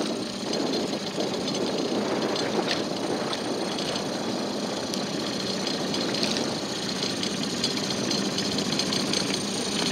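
Small boat's outboard motor running steadily under way, an even engine hum with the rush of the moving boat.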